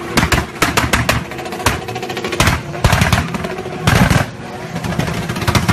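Car exhaust backfiring, a rapid irregular volley of sharp pops and bangs over a running engine, with the loudest clusters about two and a half, three and four seconds in.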